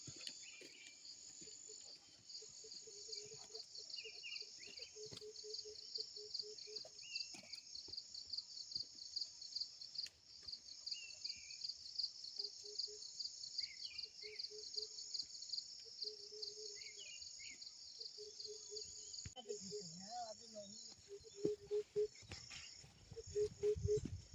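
Forest insect chorus: a steady high buzz that pulses rapidly, with a lower call repeating in short runs and a few short bird chirps. Several low thumps come near the end.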